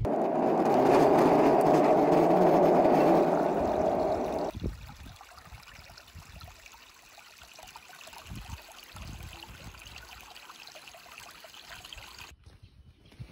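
Water flowing in a concrete irrigation channel, loud for the first four and a half seconds, then dropping suddenly to a faint trickle with a few small knocks.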